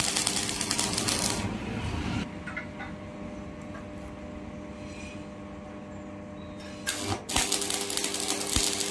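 Stick (arc) welding: the electrode arc crackles steadily for about two seconds while tacking a steel rod onto an iron window grill, then stops. It strikes again about seven seconds in and crackles through the end for a second tack weld. A steady hum runs beneath in the gap.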